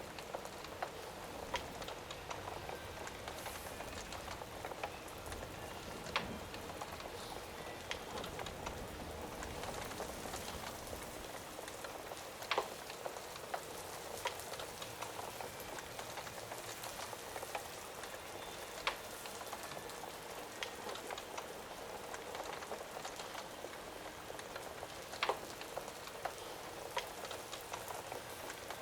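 Steady rain hissing, with a crackling fire's sharp pops breaking through now and then, a handful of them louder than the rest.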